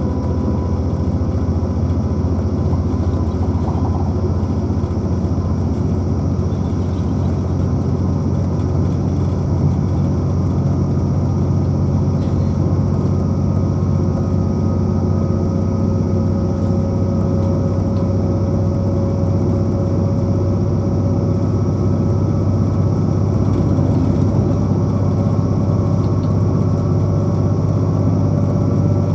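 Inside a Class 180 diesel multiple unit under way: a steady low drone from its underfloor Cummins diesel engines and the running gear, with a faint whine slowly rising in pitch as the train gathers speed.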